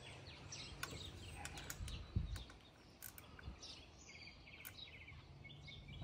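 Small birds chirping and twittering, with a short rapid trill about four seconds in, over a few faint, sharp clicks of hand tools being handled.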